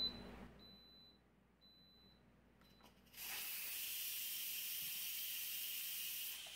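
Instant Pot electric pressure cooker venting steam through its pressure release valve for a quick pressure release after cooking. A steady high-pitched hiss starts suddenly about three seconds in and runs on for several seconds.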